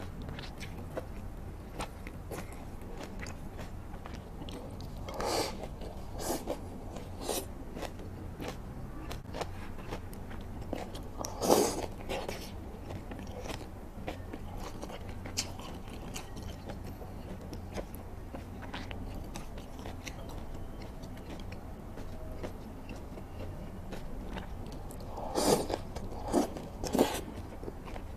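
Close-miked wet chewing and mouth smacks of a person eating soft, saucy shredded pork and tofu-skin wraps, a steady patter of small clicks with a handful of louder smacks a few seconds in, near the middle and near the end.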